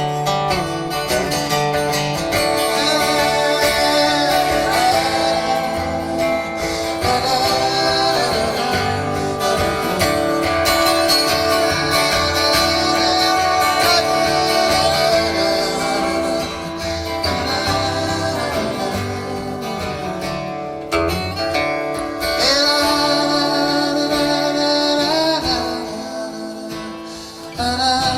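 Live band music led by guitars, loud and continuous.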